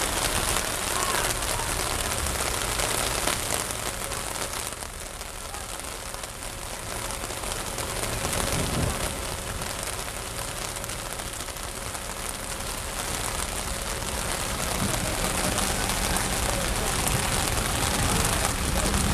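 Heavy rain pouring down steadily onto the street and nearby surfaces during a storm, with tractor engines running underneath. It eases off a little about a third of the way in, then builds up again towards the end.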